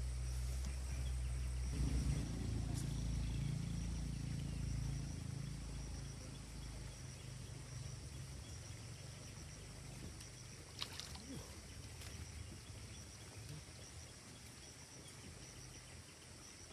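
A low hum, like a distant motor, fading away over the first six seconds or so, over a steady high drone of insects; one sharp click about eleven seconds in.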